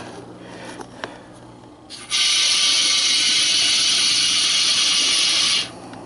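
Aerosol can of Great Stuff expanding foam gap filler spraying through its straw nozzle into a hole drilled in an ATV tire: a steady hiss lasting about three and a half seconds, starting about two seconds in and cutting off sharply.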